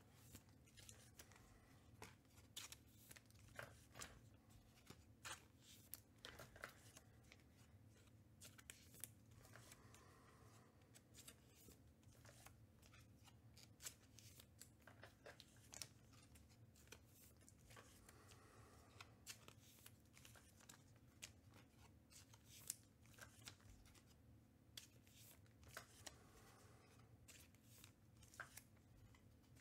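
Faint handling of baseball trading cards: quiet sliding and flicking as cards are flipped through, with scattered light clicks.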